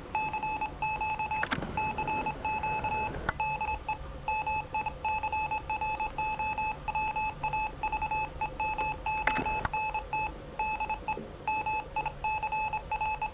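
Computer-generated Morse code sent at 25 words per minute: a single steady beep tone keyed on and off in quick dots and dashes. A few sharp clicks come through over it.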